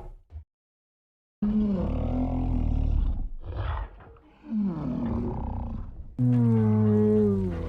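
Custom King Kong giant-ape roar sound effects: after about a second of silence, several deep roars follow one another, with a short higher cry between the first two. The last roar is the loudest, held for over a second and falling slightly in pitch.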